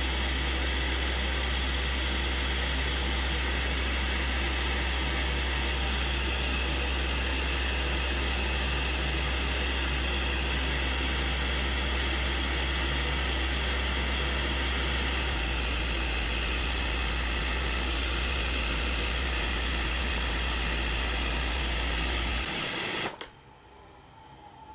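Wood lathe running steadily with a strong low hum and an even whirring noise, spinning the mahogany blank; it cuts off suddenly near the end.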